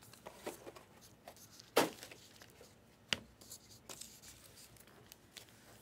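Quiet handling of trading cards and plastic card holders: soft rustling and scattered light clicks, with two sharper clicks about two and three seconds in.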